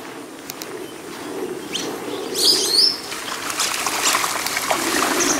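A flock of birds rising off a pond: a burst of high, gliding chirps about halfway through, followed by a dense flutter of wingbeats.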